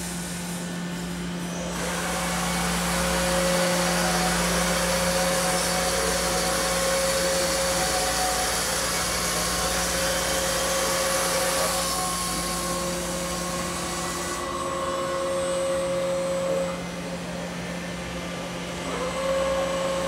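Kuraki KBT-11WA CNC horizontal boring mill running its program: a steady motor hum with a loud whirring rush that swells about two seconds in, drops back a few seconds before the end, then picks up again.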